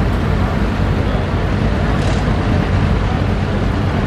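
Allis-Chalmers farm tractor engine running steadily with a dense low rumble.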